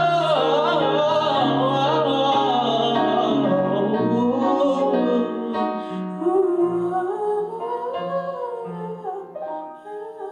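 A solo singer's wordless vocal runs, sliding up and down in pitch, over a piano and bass backing track. The music gets quieter near the end.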